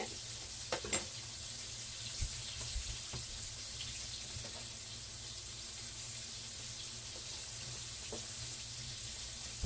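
Chicken pieces frying in hot grease in a skillet: a steady sizzle, with a couple of light clicks about a second in.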